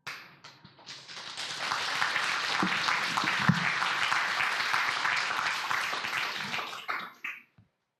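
Congregation applauding: clapping builds up over the first second, holds steady, then thins to a few last claps and stops shortly before the end.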